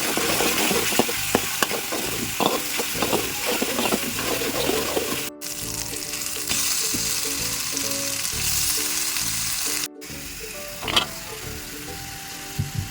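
Food sizzling in a hot frying pan while it is stirred, with a utensil clicking and scraping against the pan through the first few seconds. The sizzle breaks off twice in brief gaps and is quieter after the second one.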